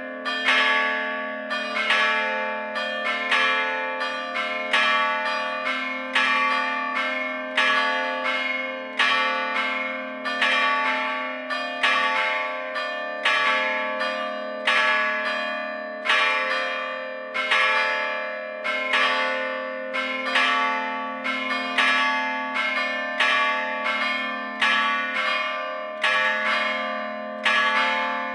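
Three church bells cast by the Gescher foundry, struck by hammers rather than swung, ringing together in an uneven overlapping sequence of roughly one to two strokes a second. Each stroke rings on and fades, with a steady low tone lingering underneath.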